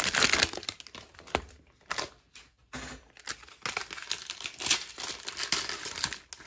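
Plastic wrappers of cello trading-card packs crinkling and tearing as they are ripped open by hand, in irregular crackling bursts, with a lull of about a second near the middle.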